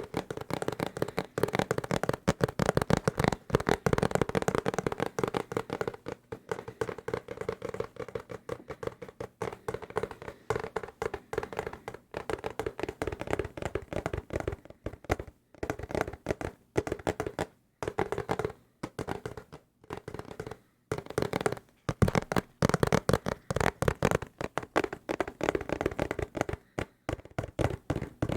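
Fast, aggressive fingertip and nail tapping on hard desk objects, a dense run of quick taps with a few brief pauses.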